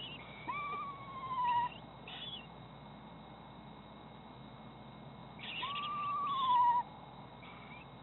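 Eastern screech owl giving its quavering whinny call twice, each about a second long, rising briefly and then sliding down in pitch. Short, higher chirps come between and around the calls.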